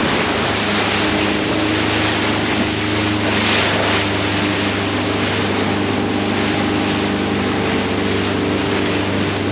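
Motorboat engine running at a steady pitch under loud wind noise on the microphone and the rush of water and spray, as the boat pushes through rough, choppy waves.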